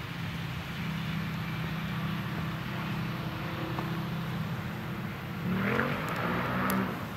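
Claas Lexion 560 combine harvester running steadily while threshing soybeans, a constant engine and machinery drone. From about five and a half seconds in, a road vehicle accelerates with rising pitch, briefly louder than the combine.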